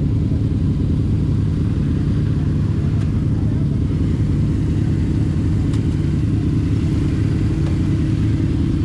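Car running steadily: a constant low rumble of engine and road noise.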